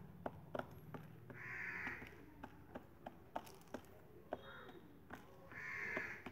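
Young pigeon pecking at rice grains on a woven basket tray: a quick, irregular run of sharp little clicks. Twice, about a second in and again near the end, a short harsh noisy sound rises over the pecking.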